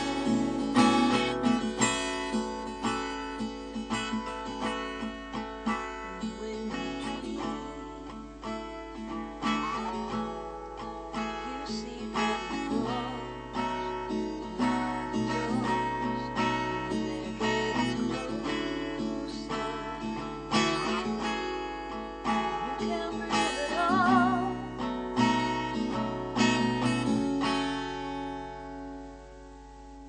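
Acoustic guitar strummed and picked through the closing bars of a folk song. About two seconds before the end the strumming stops and a last chord is left to ring and fade.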